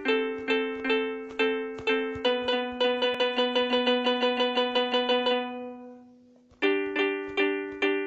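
Synthesized harp sound of a phone piano app, tapped out as music: evenly spaced plucked notes about two a second, then from about two seconds in a quicker run of notes, about six a second, that rings out and fades. Near the end the even plucked pattern starts again.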